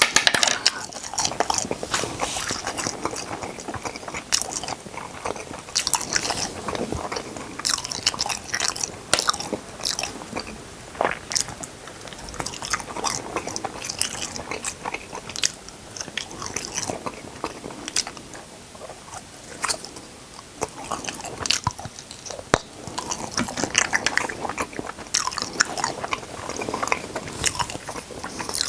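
Eating picked up close on the microphone: biting and chewing, with many short, irregular crunches.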